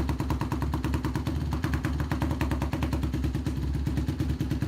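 Honda CRF150L's single-cylinder four-stroke engine idling steadily, a rapid even putter of firing pulses.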